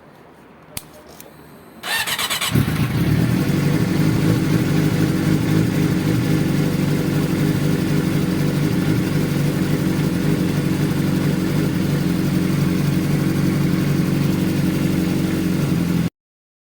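Suzuki GSX-R's inline-four engine cranked on the electric starter for under a second, catching and running at a steady idle after its oil change. The sound cuts off suddenly near the end.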